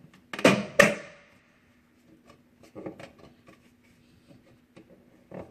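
Hand work on a plastic washing machine outlet box: two short, loud knocking and rasping sounds about half a second in, followed by light clicks and taps of tools being handled.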